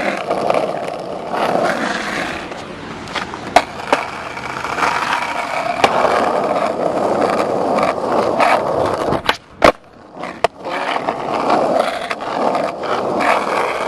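Skateboard wheels rolling over rough asphalt, a steady gritty rumble with a few clicks. About nine seconds in the rolling stops for a moment, and a few sharp clacks of the board follow, the pop and landing of a kickflip, before the rolling picks up again.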